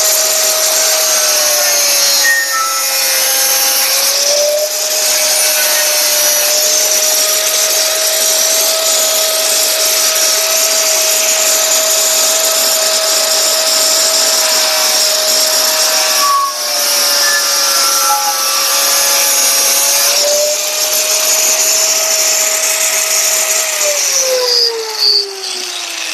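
Grinder with a cutting disc running steadily as it cuts through a printed circuit board, its pitch dipping briefly a few times under load. Near the end it is switched off and winds down with a falling whine.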